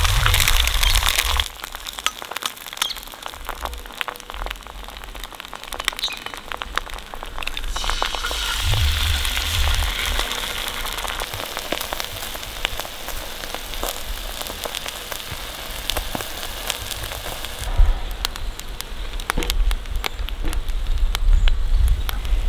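Eggs frying in a cast iron skillet over a campfire: a steady sizzle with many small crackles and pops, with low rumbling in places.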